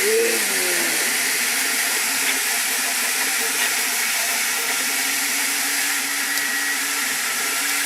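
Sovol SV08 3D printer running: a steady fan hiss with a low, even hum underneath. A short pitched whine glides up and down right at the start.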